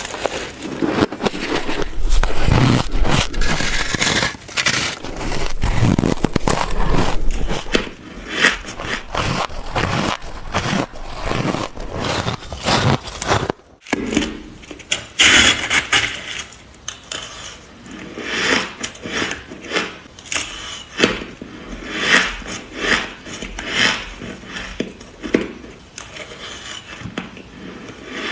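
Ice being bitten and crunched between the teeth close to the microphone, in dense crunching and scraping. A brief dropout comes about halfway through, and then separate crunchy bites follow about once a second.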